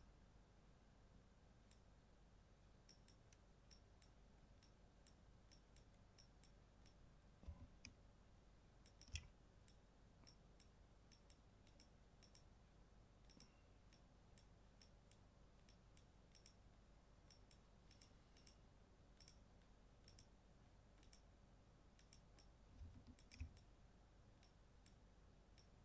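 Near silence with faint, light computer mouse clicks coming irregularly, often a few a second, as the brush is worked over the image. A few soft low knocks, around a third of the way in and again near the end.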